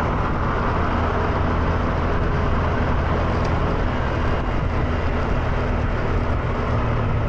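Motor scooter engine running steadily at cruising speed, under a steady rush of road noise.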